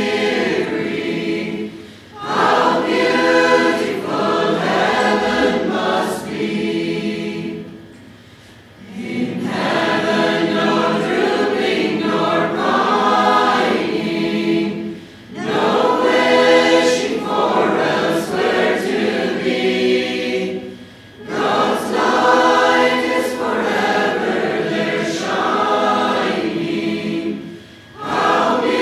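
A choir singing a hymn-like song in long phrases, with a short pause between each line.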